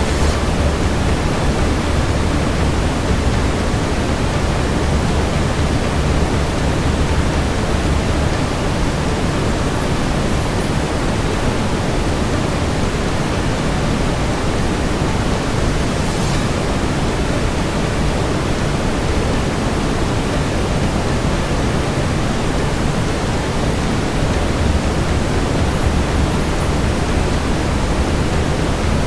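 Steady brown noise, a deep even hiss, layered with fireplace ambience; a single faint fire crackle about halfway through.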